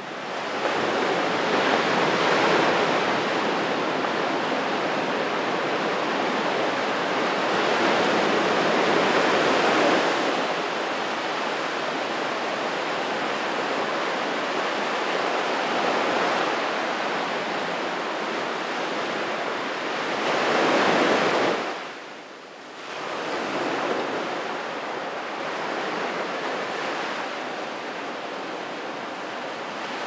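Small waves breaking and washing up a sandy beach: a steady surf hiss that swells and eases with each wave. It dips briefly about three-quarters of the way through.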